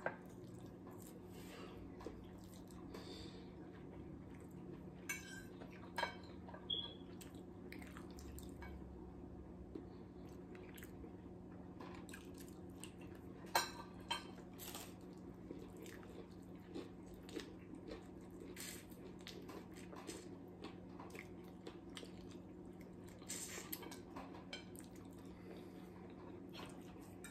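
Quiet eating at a table: forks clicking now and then against plates, with soft chewing, over a steady low hum.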